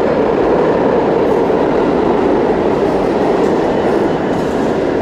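Subway train running, heard from inside the car as a loud, steady rumble.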